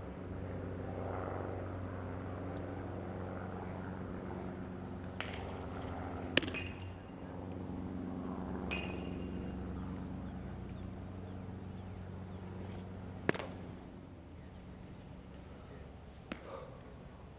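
Sharp single knocks of a baseball striking leather or a bat, a few seconds apart; the two loudest come about seven seconds apart. A steady low hum lies beneath them.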